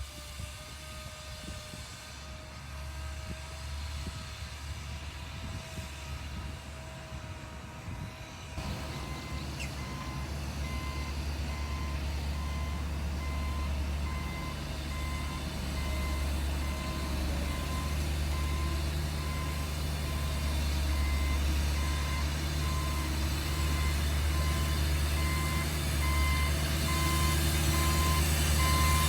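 Heavy diesel earthmoving machine running, with a reversing alarm beeping at a steady even rhythm from about a third of the way in. The engine grows louder as the machine backs up.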